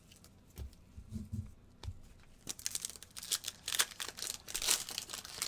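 Foil wrapper of a trading card pack being torn open and crinkled, starting about two and a half seconds in, after a few soft thumps of cards being handled.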